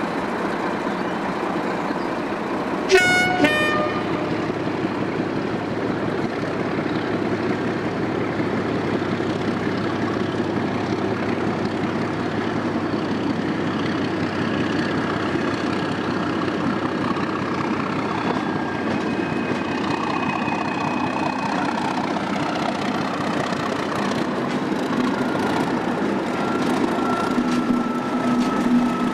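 Class 37 diesel-electric locomotive with its English Electric V12 engine, sounding a short two-note horn blast about three seconds in, then running steadily as it approaches, its engine coming up close as it passes near the end.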